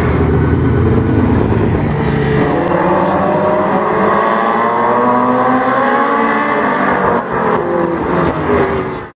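Several modified race car engines running together at racing speed, their pitches rising and falling against one another as the pack accelerates and lifts. The sound cuts off suddenly near the end.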